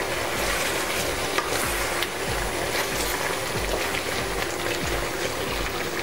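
Chicken pieces bubbling and sizzling in the water they have released, in a wok-shaped pan, while a wooden spatula stirs them with small scrapes and knocks against the pan. The chicken has given up its water while cooking covered.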